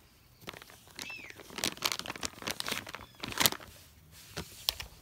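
Crinkling and rustling of a bath wipe being handled, with handling noise as the phone is moved. It comes as a run of irregular crackles and taps, loudest about three and a half seconds in.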